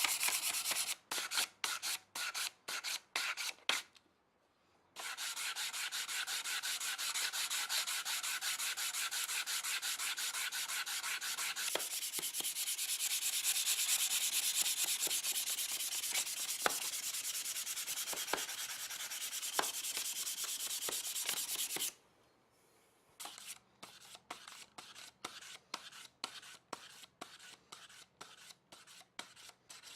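Hand sanding a steel silversmithing stake with emery paper: quick back-and-forth rasping strokes, about three a second, then a long unbroken stretch of sanding from about five seconds in, then separate strokes again near the end.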